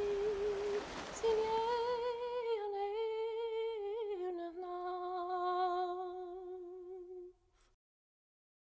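A voice humming a slow wordless tune in a few long held notes that drift gradually lower, stopping about seven and a half seconds in.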